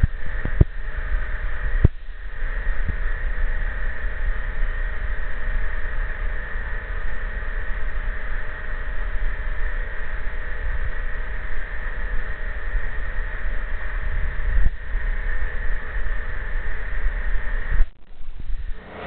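Egg-collection conveyor running steadily, a continuous mechanical noise, with a few sharp clicks in the first two seconds.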